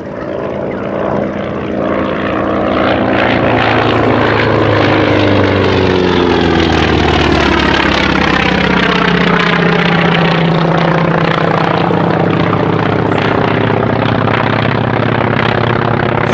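Grumman FM-2 Wildcat's Wright R-1820 radial engine and propeller on a display pass, growing louder over the first few seconds, then holding loud as the engine note slides down in pitch while the fighter goes by.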